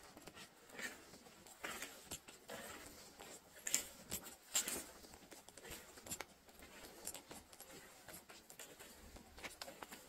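Faint, irregular rustling and crackling of dry leaves and twigs, with two sharper cracks about four and a half seconds in.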